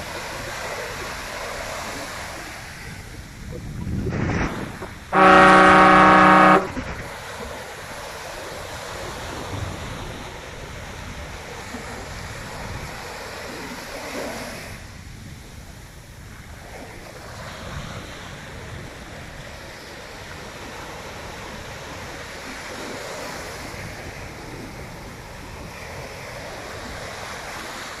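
Motor yacht's horn sounding one loud, steady blast of about a second and a half, over the wash of surf and wind noise.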